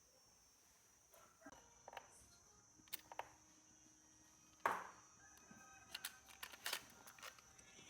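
Clicks and one sharp clack from a Casio TP-50 cassette player being handled, the loudest about halfway through. Faint music plays back from the tape.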